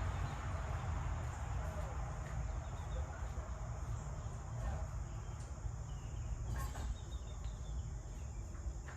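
Steady high-pitched chirring of insects over a low rumble, with a faint click about seven seconds in.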